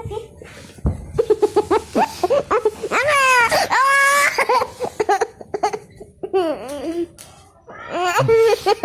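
Baby laughing in quick runs of short, high-pitched bursts, with a long high squeal about three seconds in and more laughter near the end.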